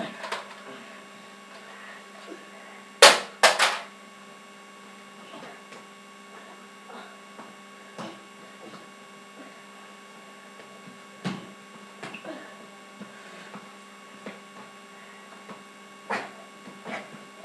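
A Nerf blaster goes off with two sharp clacks about half a second apart, a few seconds in, over a steady electrical hum. A few fainter knocks follow later.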